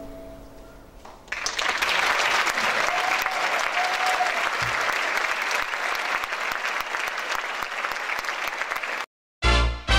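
The last chord of a classical guitar rings out and fades, then applause breaks out about a second in and runs on until it cuts off abruptly near the end, where a short burst of theme music begins.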